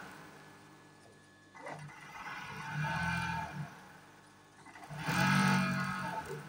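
Janome overlock (serger) machine running in two short runs as it stitches the edge of a strip of fabric, the first starting about a second and a half in and the second about five seconds in, with a quiet pause between.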